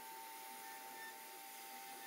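CNC router spindle running steadily as its bit carves a wooden panel: one constant whine over a steady hiss.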